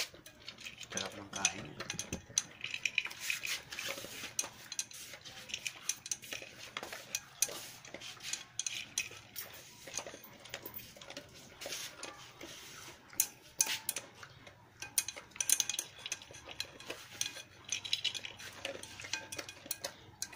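A dog eating dry kibble from a metal cooking pot: rapid, irregular crunching, with the food and its chain collar clinking against the pot.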